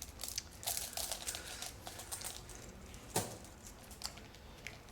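Stainless steel #50 roller chain being handled and flexed, its links giving off faint irregular clicks and small rattles, with one sharper click about three seconds in. The chain is dry and, in the owner's words, definitely needs oil.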